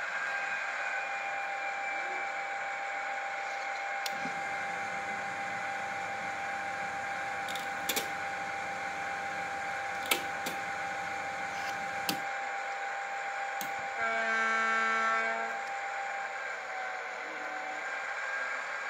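H0-scale Roco ST44 model diesel locomotive running slowly on the layout: a steady mechanical hum with a constant tone, broken by a few sharp clicks. Near the end a held pitched tone sounds for about a second and a half.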